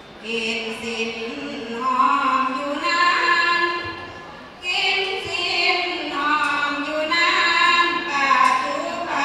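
A group of women singing a Thai Buddhist sarabhanya chant, unaccompanied, in long drawn-out melodic phrases. The singing fades into a short pause about four seconds in, then a new phrase begins.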